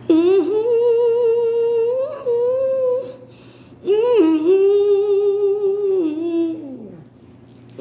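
A woman humming two long held notes with a slight waver, the second lower than the first and sliding down at its end.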